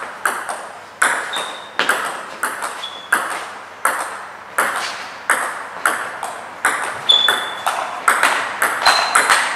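Table tennis ball clicking back and forth in a long rally, paddle hits and table bounces following each other every fraction of a second, ringing in an echoing sports hall. A few short high squeaks of sport shoes on the floor cut in between the hits.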